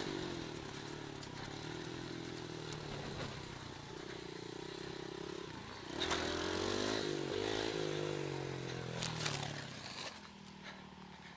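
Dirt bike engine running as it is ridden, at a steady throttle at first. About six seconds in it gets louder, its pitch rising and falling as it revs, then it eases off near the end.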